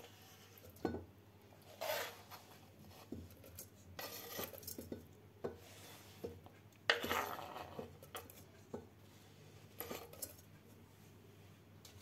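Knife blade scraping cut citron pieces off a wooden cutting board into a ceramic jar, about four separate scraping sweeps with small clinks as the pieces drop in.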